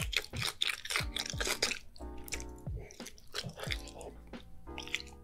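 Close-miked wet chewing and smacking of a mouthful of dumplings drenched in cheese sauce, with many sharp, sticky clicking mouth sounds, over background music with a steady beat.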